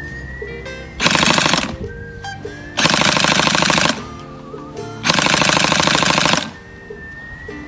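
ARES G36K airsoft electric gun firing three full-auto bursts, each a rapid even rattle of the gearbox cycling with the electric blowback. The bursts are short, then about a second, then a little longer.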